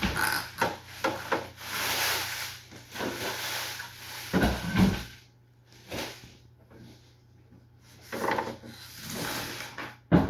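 Cardboard packaging rubbing and scraping as a heavy boxed welder is worked out of its box, with two dull thumps about four and a half seconds in, then quieter scattered rubs and clicks.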